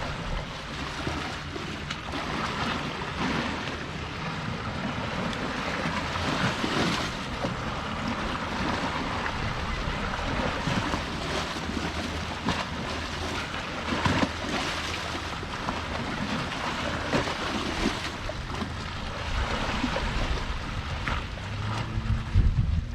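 Sea waves washing against the shore in a steady surge, with wind gusting on the microphone.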